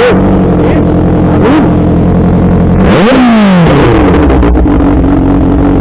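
Kawasaki ZX-6R 636's inline-four engine idling with quick throttle blips. The biggest blip comes about three seconds in, the revs rising sharply and falling back over about a second.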